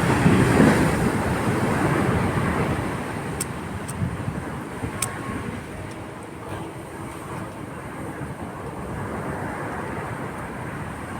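Steady outdoor background rumble, like distant traffic or wind, louder for the first few seconds and then easing, with a few faint clicks a few seconds in.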